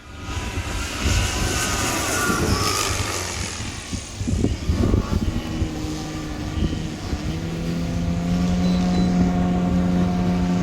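Large electric RC airplane's 27x10 propeller, a Hangar 9 Beast on 14S power, running with a rough, rumbling drone, then settling about two-thirds of the way in into a steady pitched hum that holds.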